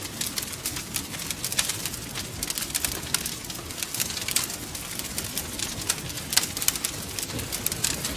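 Wood fire crackling, with many irregular sharp snaps and pops over a steady low rush.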